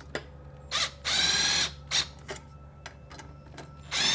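Cordless drill/driver driving bolts into an alternator's fan shroud. It runs in two short bursts of about half a second each, about a second in and again near the end, with brief blips of the motor and clicks of handling between.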